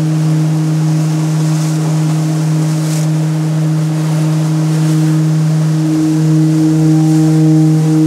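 A gong's low drone, held steady on one deep tone with its overtone, with higher ringing tones joining and a slow pulsing beat starting about six seconds in. Sea surf washes on the rocks underneath.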